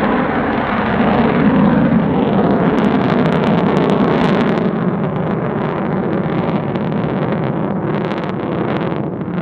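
Lockheed Martin F-35A's Pratt & Whitney F135 afterburning turbofan passing overhead in afterburner: a loud, steady jet roar, loudest about a second in, with runs of crackling about three seconds in and again near the end.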